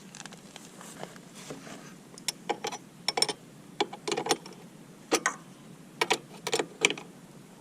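Irregular sharp metallic clicks and taps of small tools and parts being handled during carburetor reassembly on a lawn mower. They come in small clusters, starting about two seconds in.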